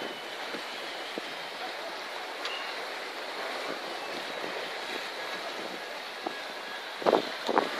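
Steady hiss of sea surf and wind, with a few short, louder bumps near the end.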